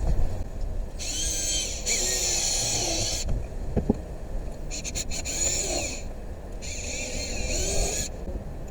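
Power drill running in three bursts, a couple of seconds each, into pallet wood. Its whine wavers in pitch as the trigger and load change.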